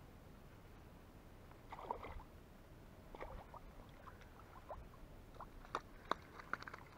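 Faint splashing of a hooked chub thrashing at the water's surface close to the bank, with a few sharp clicks near the end.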